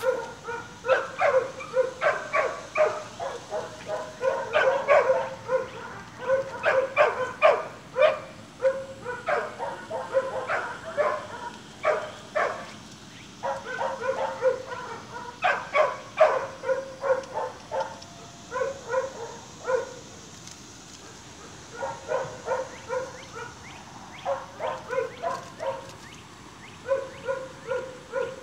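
Litter of staghound puppies, almost seven weeks old, yipping and barking excitedly in play, in quick runs of short high calls. The calls come thick and fast for the first half, then in shorter groups with pauses between.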